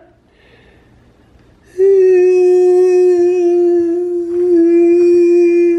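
A person's voice holding one long, steady hummed or sung note, starting about two seconds in after a short lull.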